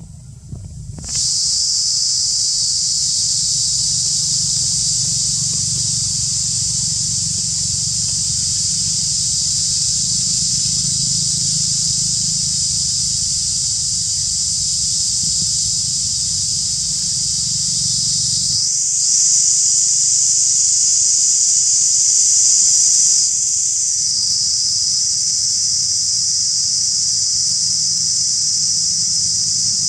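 Insect chorus, likely cicadas: a loud, steady, high-pitched buzzing drone. It swells louder for a few seconds a little past halfway, then settles back. A low rumble runs underneath until about the same point.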